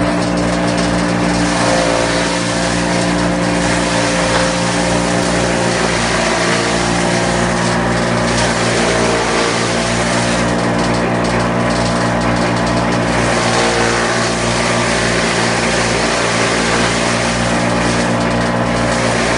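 Penagos PE1200 forage chopper running steadily with a constant low mechanical hum, its cutter chopping the green fodder being fed into it, with a hiss that rises and falls as the feed goes in.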